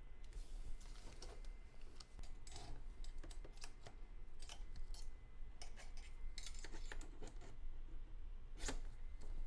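Small hard parts and hardware being handled and shifted into line by hand: an irregular string of light clicks, taps and small knocks.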